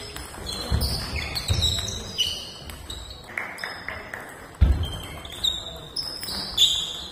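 Table tennis rally: the plastic ball clicking off the bats and the table again and again, with rubber-soled shoes squeaking and feet thudding on the gym floor, in an echoing sports hall. The heaviest thud comes about four and a half seconds in.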